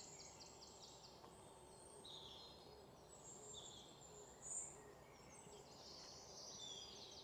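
Near silence: faint outdoor ambience with distant birds chirping in quick high runs near the start and near the end.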